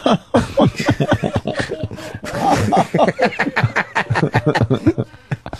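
Men laughing and chuckling in quick, breathy bursts, with a little talk mixed in.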